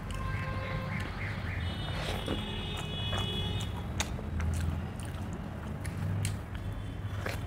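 Eating sounds: fingers tearing handmade roti and dipping it in egg curry, then chewing, with sharp clicks now and then. A steady low hum and a few faint high tones run underneath.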